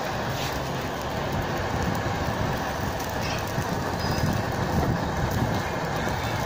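Butane flame-gun torch burning steadily: a continuous, even rushing noise of the gas flame playing on a plastic water bottle.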